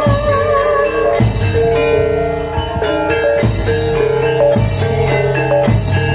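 Gamelan-style ensemble music: metallophones playing a busy melody of struck notes over heavy drum strokes about every two seconds. A held, wavering sung note fades out about a second in.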